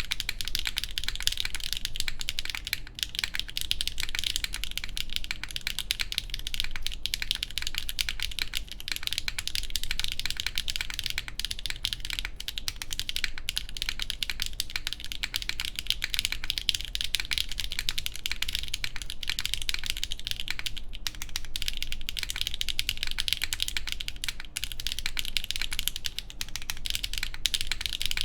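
Fast, continuous typing on a Geonworks F1-8X V2 mechanical keyboard with HMX Macchiato switches on a full aluminium plate and GMK keycaps. It is a dense run of key clacks with no pauses, with the case screw under the spacebar removed.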